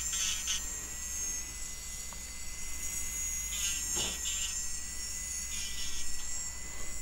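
Electric nail drill (e-file) running with a steady high whine, its bit making a few brief grinding passes over the gel nail at the cuticle area.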